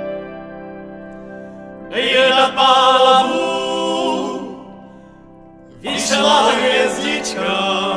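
A Czech-language song: sustained keyboard chords, with a voice singing a phrase starting about two seconds in and another about six seconds in, after a brief lull.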